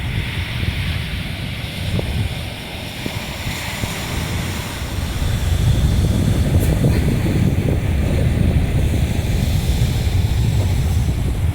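Sea surf washing onto the shore, with wind buffeting the microphone in a low rumble that grows stronger about halfway through.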